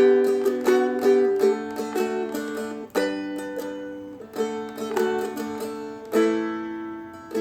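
Seagull Merlin M4 stick dulcimer, flatpicked: a run of quick picked melody notes, then strummed chords left to ring and fade between strokes.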